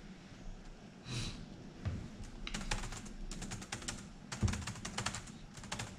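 Typing on a computer keyboard: quick runs of key clicks with short pauses between them, starting about two and a half seconds in.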